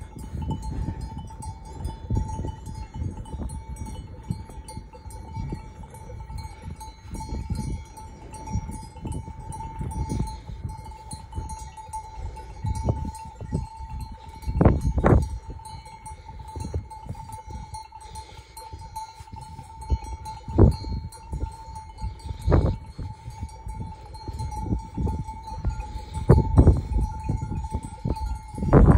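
Bells on a flock of sheep clinking as the animals walk and graze, over a steady high ringing tone and low rumbling. A few louder knocks stand out about halfway through and near the end.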